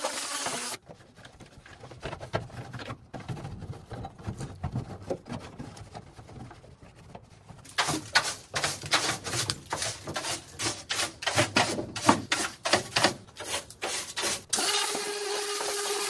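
Stiff plastic-bristle broom sweeping grit and dust across the bare ribbed metal floor of a stripped van: softer scratchy scrubbing at first, then brisk repeated scraping strokes, about two or three a second, from about eight seconds in. A steady noise cuts off under a second in and starts again near the end.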